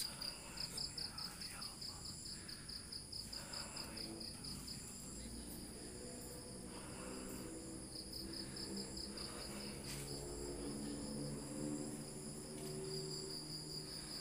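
Crickets and other evening insects: a high, rapid pulsed chirping that comes and goes in three spells, over a steady high-pitched buzz.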